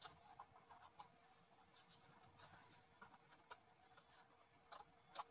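Near silence, with faint scattered clicks and light scratches from small hand work on a woofer's broken voice-coil lead while it is being soldered, over a faint steady hum.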